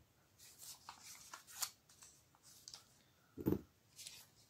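Faint clicks and rustles of small iron strips being handled on cardboard and paper being wrapped around them, with a soft low thump about three and a half seconds in.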